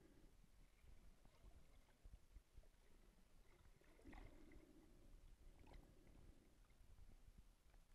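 Near silence underwater: faint, muffled water noise with a few soft clicks, and a slight swell of sound about four seconds in.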